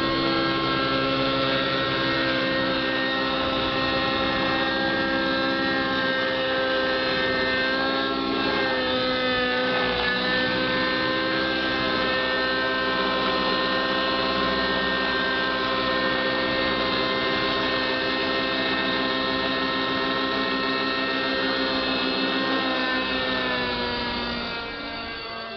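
Radio-controlled model helicopter flying close overhead, its motor and rotors making a steady, pitched drone. The pitch dips briefly about nine seconds in, then falls and fades near the end as the helicopter flies away.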